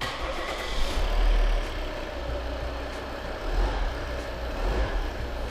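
Volvo diesel engine starting up and settling into a steady idle, with no knocking heard: the knock fault has been cured.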